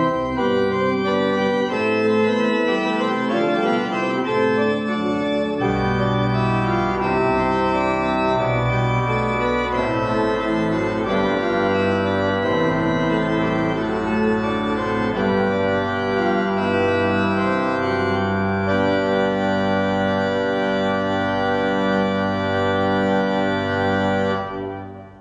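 Church pipe organ playing slow, sustained chords, with deep pedal bass notes coming in about six seconds in. The final chord dies away near the end.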